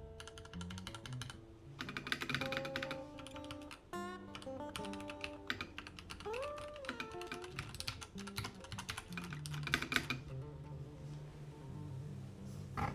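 Typing on a FiiO KB3 mechanical keyboard: a fast run of key clicks from about two seconds in until about ten seconds in, over acoustic guitar background music.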